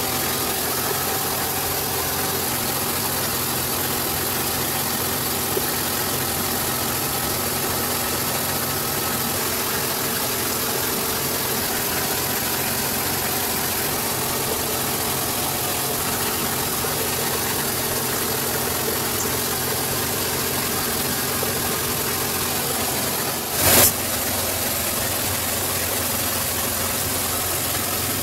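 Ship's engine-room machinery running: a steady mechanical drone with a constant hum underneath. A single short, loud knock comes about four seconds before the end.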